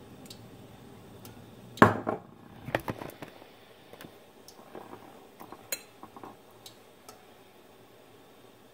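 A metal fork clinking and scraping against a glass mixing bowl as a chicken drumstick is tossed and patted in seasoned flour. The sharpest clink comes about two seconds in, followed by a scatter of lighter taps.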